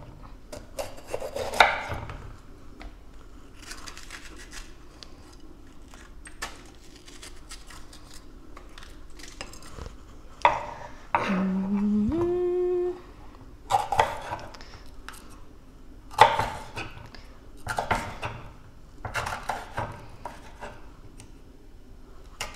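Kitchen knife chopping bell pepper on a wooden cutting board: sharp knocks every second or two, some in quick clusters. About halfway through, a woman hums two notes, the second higher.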